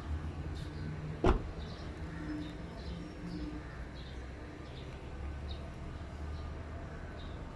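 A car door, the 2019 Proton Saga's, shut once with a sharp thump about a second in, over a steady low hum. Small birds chirp repeatedly in the background.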